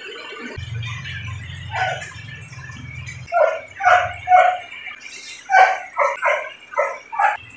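A dog barking about ten short times in quick runs, starting about two seconds in.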